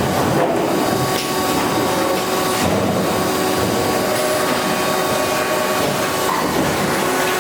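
Industrial machinery of a refrigerator-door production line running: a steady mechanical noise with faint steady whines running through it.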